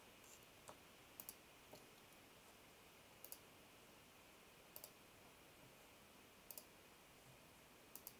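Faint computer mouse clicks, mostly in quick pairs, coming every second or two over near-silent room tone.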